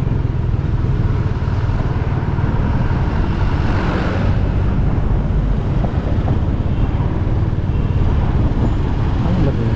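Honda XRM 125 motorcycle's single-cylinder four-stroke engine running steadily while riding at low speed, heard as a continuous low rumble with road noise. About four seconds in there is a brief swell of brighter noise.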